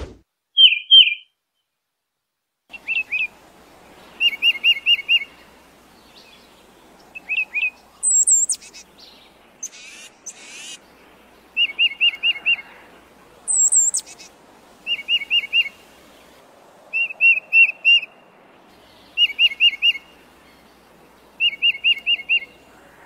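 Tufted titmouse singing: phrases of four or five quick, clear whistled notes, repeated every couple of seconds. Twice a higher, thinner note cuts in over a faint steady background hiss.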